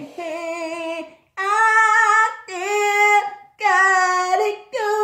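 A woman singing a string of long held notes, each about a second, with short breaks between them.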